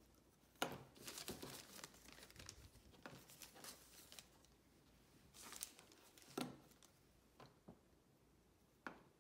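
Faint crinkling and rustling of a thin plastic model-rocket parachute being handled, in irregular bursts, with a few short sharp clicks, the loudest about half a second in.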